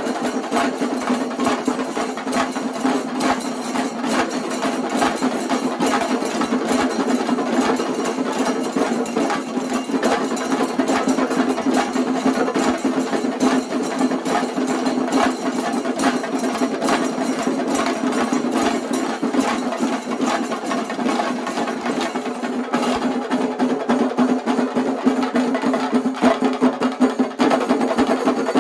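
Shingari melam ensemble of many chenda drums beaten with sticks in a fast, continuous roll, two troupes playing against each other in a muttal face-off, with elathalam hand cymbals clashing over the drums.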